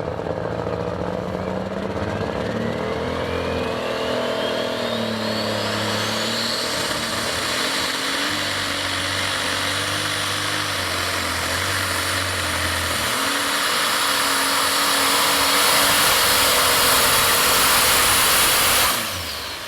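Competition pulling vehicle's engine at full throttle during a pull. A turbo whine climbs steeply for several seconds and then holds high while the engine noise builds and grows louder. The throttle cuts off abruptly near the end and the whine falls away.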